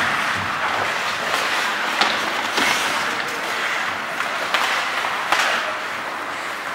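Ice hockey play: skate blades scraping and carving the ice in a continuous hiss, with sharp clacks of sticks and puck scattered throughout.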